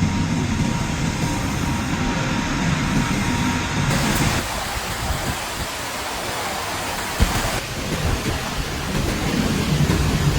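Storm wind and rain: a steady, rushing roar with low rumble, changing character about four seconds in and again near eight seconds. There is a single sharp knock about seven seconds in.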